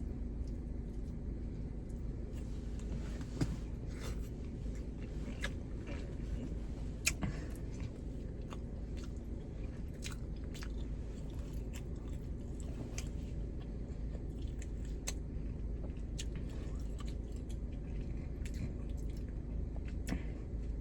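Someone chewing a mouthful of food close to the microphone, with scattered small crunches and mouth clicks, two of them louder about three and seven seconds in, over a steady low hum.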